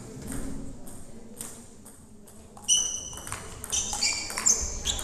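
Table tennis rally: the plastic ball clicks sharply off the rackets and the table in quick back-and-forth strokes. It starts with a loud hit about two and a half seconds in, after a few scattered ball clicks.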